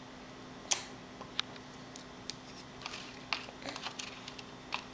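Baby smacking his lips over a mouthful of tart applesauce: a series of short, wet clicks at irregular intervals, the loudest about a second in.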